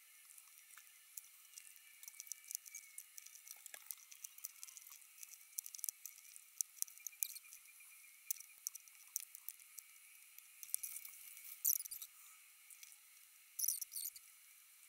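LEGO plastic bricks clicking and clattering lightly as they are handled and pressed together: many small, irregular clicks, with a couple of denser rattles near the end.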